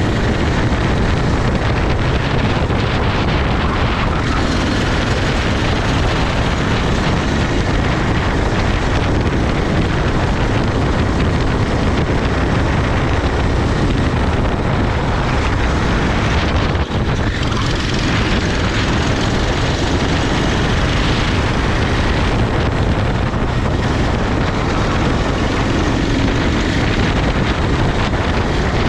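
Racing kart engine running at speed, buried in heavy wind rush on the microphone, with a brief dip about halfway through.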